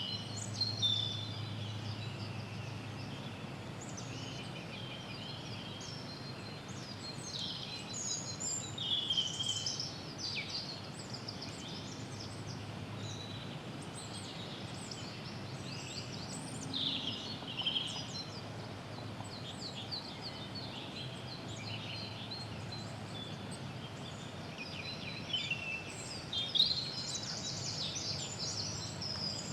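Woodland birds singing and calling in scattered bursts of high chirps and trills, over a steady background hiss and a low hum.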